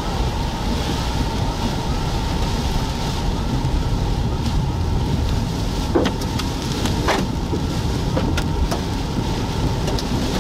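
Steady road and tyre noise inside a moving car, heard from the cabin, broken by a few sharp knocks from hailstones. The strongest knocks come about six seconds in and just after seven seconds, with smaller ones later.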